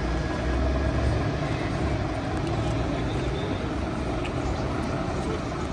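Steady low rumble of idling and passing road vehicles in city traffic, with faint voices.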